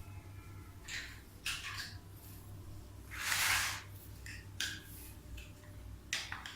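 Plastic toy construction pieces being handled and fitted together: a handful of short clicks and scrapes, with one louder rustling scrape about three seconds in, over a low steady hum.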